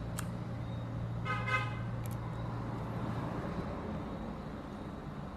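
Steady low hum with a brief, high-pitched horn-like toot about a second in and a few faint small clicks.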